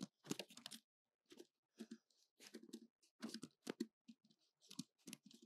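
Computer keyboard typing in quick irregular runs of keystrokes, faint, with brief pauses between the runs.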